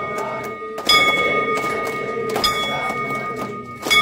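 Metal temple bell struck three times, about once every second and a half, each strike ringing on in a few high steady tones, as rung for an aarti.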